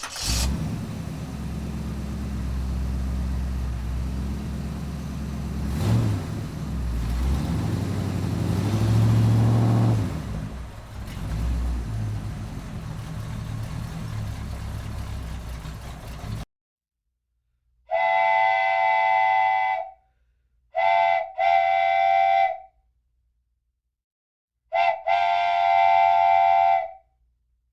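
A loud, noisy mechanical rumble that cuts off suddenly, followed by three long steady whistle-like blasts, the second broken in two.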